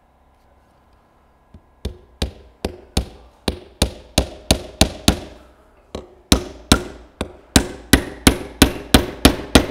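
Small hammer driving a nail through plywood into the timber frame of a beehive floor. A light tap sets the nail, then comes a run of sharp blows, about three a second, a brief pause, and a second, louder run of blows.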